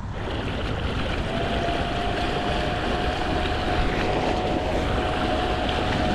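Newport 3 hp electric outboard driving an inflatable skiff, with water rushing and wind on the microphone; the motor's steady whine comes in about a second in and holds.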